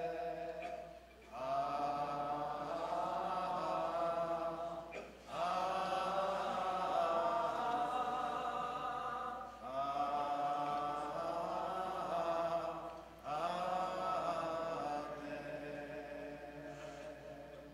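Congregation singing a slow Hebrew prayer melody in long phrases with short breaks between them, fading away near the end.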